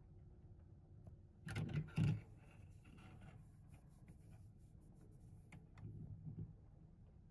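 Close handling noise: a short run of scraping and rubbing with a few sharp clicks about a second and a half in, a faint rustle after it, and a smaller scrape near the end.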